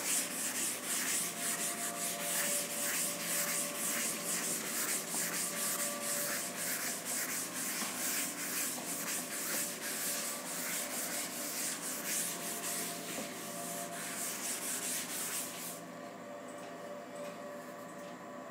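Chalkboard being wiped clean with a duster: quick, even back-and-forth rubbing strokes that stop a few seconds before the end.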